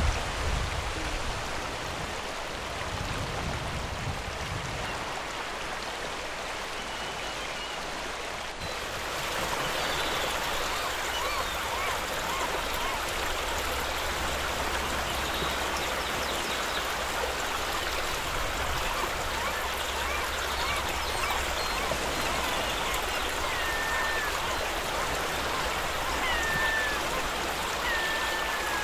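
Steady rush of flowing stream water, a little louder after about nine seconds, with a few short bird chirps near the end.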